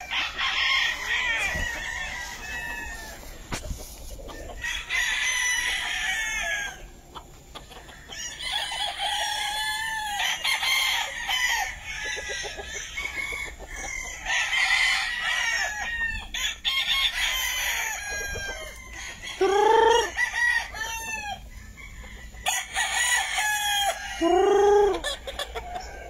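Several gamefowl roosters crowing again and again, some far off and some close, with the calls overlapping. Two loud, close crows come near the end.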